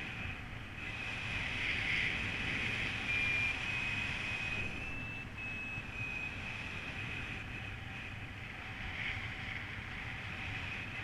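Airflow rushing over the camera microphone of a paraglider in flight, a steady wind noise, with short high variometer tones that shift slightly in pitch from one to the next.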